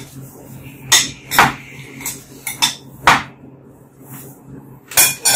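Metal ladle knocking and scraping against the inside of a clay pot while ladling out braised pork and corn: a series of sharp clinks, with a louder cluster near the end.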